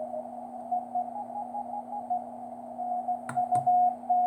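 Morse code (CW) signal received on the 40 m band by a QRP Labs QCX kit radio: short on-off beeps of a single tone, whose pitch steps up and then back down as the receiver is tuned in on the signal. A steady low hum runs underneath, and two sharp clicks come about three and a half seconds in.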